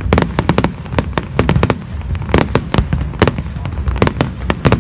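Aerial fireworks display: shells bursting in rapid, irregular bangs and cracks, several a second, over a steady low rumble.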